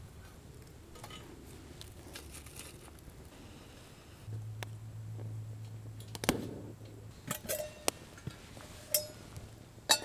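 Sharp metal clinks and knocks on a small folding steel wood-burning stove as the stainless steel cook pot is set on it, the loudest about six seconds in and a few more near the end, over faint crackling from the twig fire. A low steady hum runs for about three seconds in the middle.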